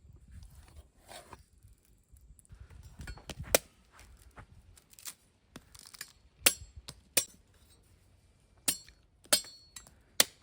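A scattered series of sharp clinks and knocks, as of hard objects being handled and set down, some with a brief metallic ring; the loudest come about three and a half and six and a half seconds in.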